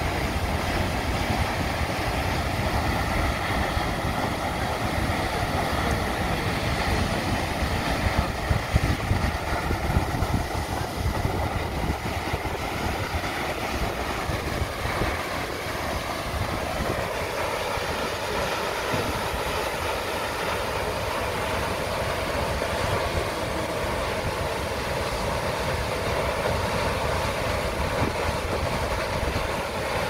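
Large waterfall plunging off a sea cliff into the sea: a steady, continuous rush of falling water and churning surf.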